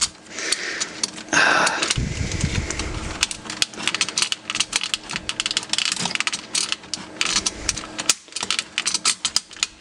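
Hard plastic parts of a Transformers Armada Jetfire and Optimus Prime toy clicking, scraping and rattling in a dense run of small clicks as the shield piece is pushed and worked onto the chest. Its two small hooks are hard to seat, hence the repeated fiddling.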